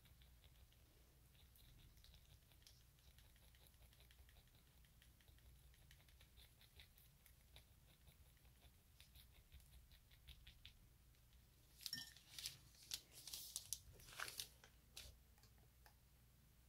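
Faint clicks and light rustling from hands handling small plastic paint pots. About twelve seconds in, a short run of louder taps and scraping lasts about three seconds, as the pots are set down and the canvas sneaker is picked up.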